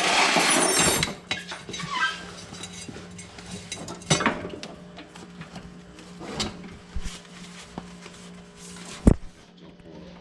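Metal clattering and clanking as a riding mower's rear transaxle is worked loose and lifted out. There is a burst of clatter in the first second, then scattered sharp knocks, the sharpest near the end, over a steady low hum.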